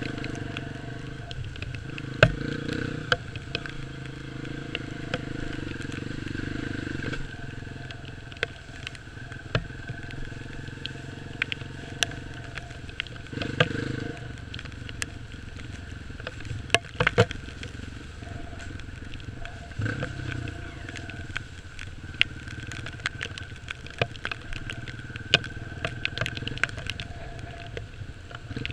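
Off-road motorcycle engine running as it rides a rough dirt trail, its note rising and falling with the throttle, with frequent sharp knocks and clatter throughout.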